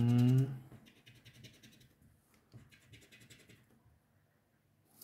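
A lottery scratch card being scratched, in two short bouts of rapid scraping strokes, with a small click near the end.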